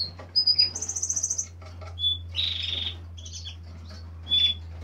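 Caged finches chirping and twittering in short high calls, with a fast trill about a second in and more chirps through to the end, over a steady low hum.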